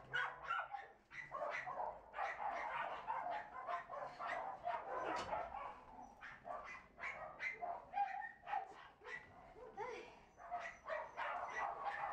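Dogs barking over and over, the barks short and overlapping one another.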